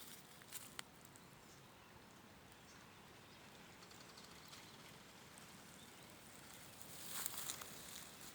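Faint outdoor ambience with two soft clicks just under a second in and a brief rustle about seven seconds in.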